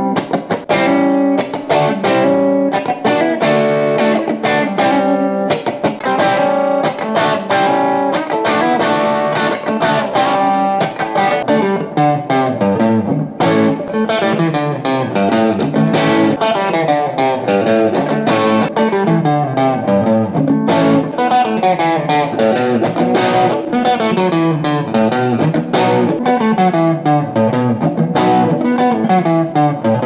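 Partscaster Telecaster-style electric guitar played through a Yamaha THR5 practice amp on its overdrive setting with a little reverb, recorded off the amp by phone. It plays a continuous stream of quick notes that gets denser and faster about halfway through. The pickup selector changes between the neck and middle positions.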